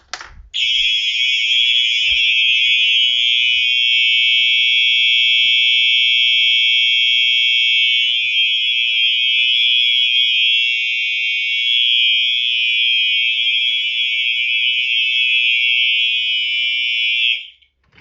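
Smoke detector being tested, sounding one continuous high-pitched alarm tone that starts about half a second in and cuts off suddenly near the end.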